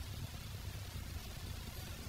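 Quiet room tone: a low steady hum under an even hiss, with no distinct knock or tool sound.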